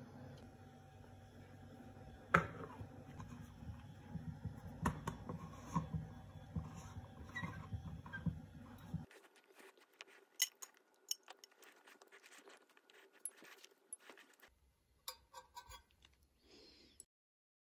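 Faint kitchen handling: a spoon stirring and scraping in a cup of milk, with scattered clicks and taps of utensils and a lid against the cup.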